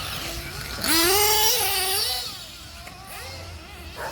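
Radio-controlled race car running past on the track. Its motor whine rises about a second in, wavers through a loud passage lasting about a second, then falls back to a fainter whine.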